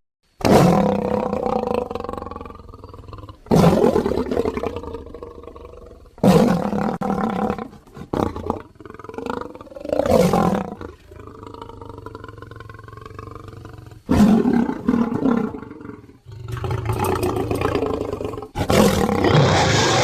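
Dryptosaurus roar sound effects made from layered lion and creature roar recordings: a series of about half a dozen roars, each starting suddenly and fading out.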